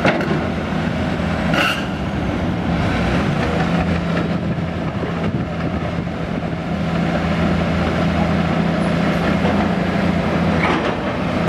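Volvo EC360BLC hydraulic excavator's diesel engine running steadily while the upper structure slews, with a brief high squeak about a second and a half in and a few light clicks near the end.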